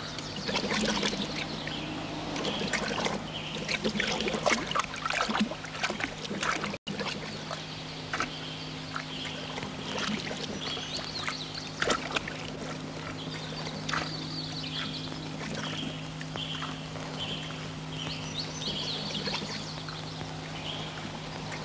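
Water splashing and sloshing as a man wades through a pond, over a steady low hum.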